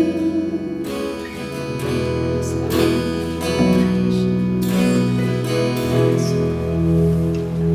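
Acoustic guitar strumming chords with the band's sustained instrumental backing as the worship song's outro plays out, no singing.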